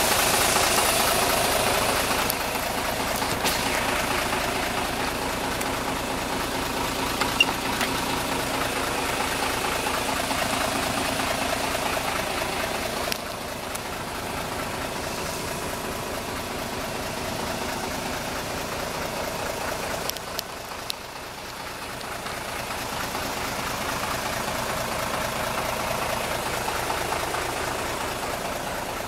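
A Mitsubishi 6D16 turbo-diesel straight-six idling steadily, with a few small clicks and knocks on top.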